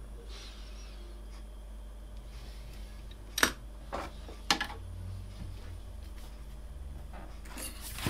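Sharp clicks and clinks of small tools and tablet parts handled on a workbench, the two loudest about three and a half and four and a half seconds in, with a cluster of clicks near the end as a USB charging cable is plugged in. A steady low hum lies underneath.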